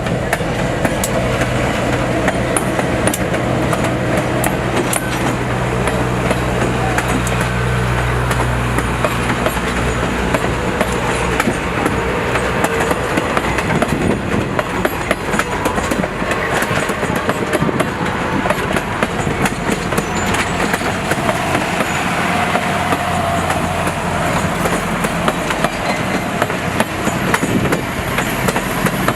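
Railroad passenger car rolling along the track, heard from aboard: a steady rumble and hum with the wheels clicking and knocking over rail joints.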